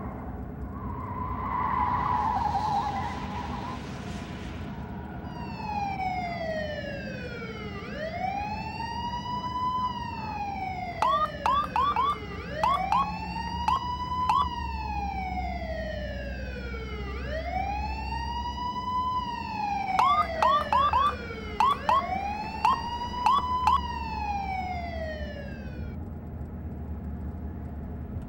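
Police car siren wailing, its pitch sliding slowly down and then sweeping back up about every four and a half seconds, broken twice by clusters of short, sharp chirps. Under it runs a steady low car rumble, after a rush of noise in the first few seconds.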